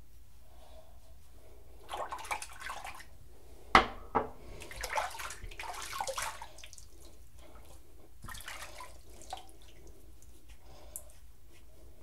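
Water from a bathroom tap splashing in three short bursts as a safety razor is rinsed, with two sharp knocks close together about four seconds in, the loudest sounds.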